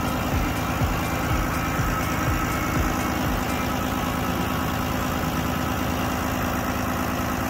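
Detroit Diesel Series 60 12.7-litre inline-six diesel idling steadily, heard close up in the engine bay.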